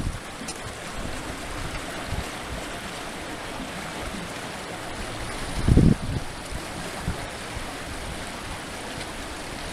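Floodwater rushing steadily across a field and past half-submerged steel culvert pipes. A short low buffet of wind on the microphone comes about six seconds in.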